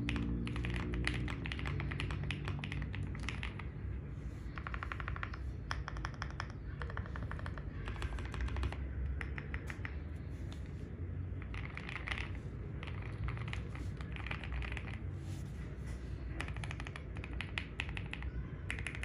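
Typing on a custom mechanical keyboard with lubed and filmed Gazzew Boba LT linear switches (65 g springs) on a polycarbonate plate in a fully foamed case, with Domikey Ghost keycaps: a rapid clatter of keystrokes in runs with short pauses, with a marbly sound.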